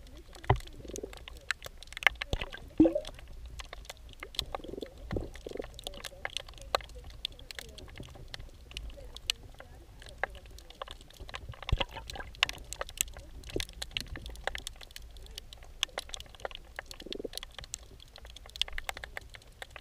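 Underwater sound picked up by a camera submerged in moving water: a low rumble with many irregular clicks and ticks and a few short gurgles.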